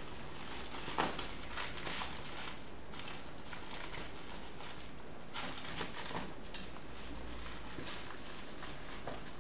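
Cat wrestling a plush toy on a tiled floor: soft scuffling, rustling and light taps of paws and claws against the tiles and the fabric, coming in short bunches, the loudest about a second in and another cluster a little past the middle.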